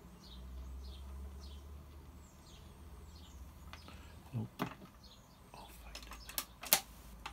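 KB Tunetime ORP10 record player with its record finished: a faint repeating swish over a low steady hum. Then its autochange mechanism cycles, with two low clunks about four and a half seconds in and a run of sharp clicks as the tone arm lifts and swings aside, the loudest click near the end.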